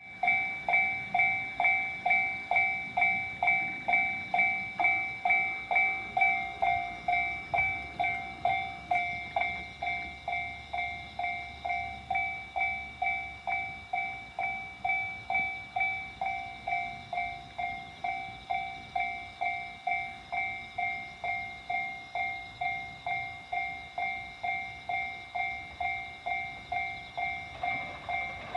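Japanese level-crossing warning bell ringing steadily at about two strikes a second, each strike a two-pitched electronic ding that fades before the next.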